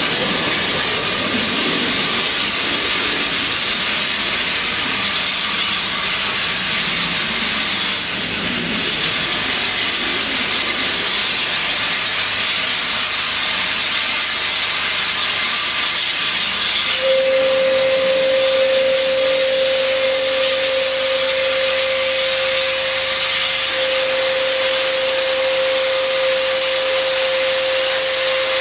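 Steam saddle-tank locomotive standing with steam hissing steadily; about halfway through a steady, single-pitched whistling note from escaping steam sets in and holds.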